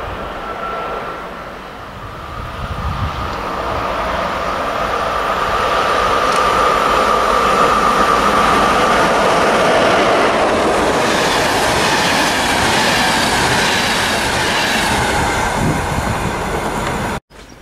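ČD class 362 electric locomotive hauling a passenger express past: the rolling noise of wheels on rail builds, is loudest as the locomotive and coaches go by, with a steady high tone over it, and cuts off suddenly near the end.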